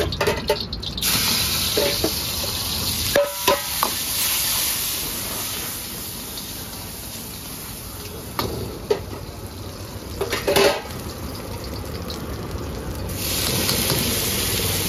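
Vegetables sizzling in hot oil in an iron wok as they are stir-fried, with a steel ladle knocking and scraping against the wok several times.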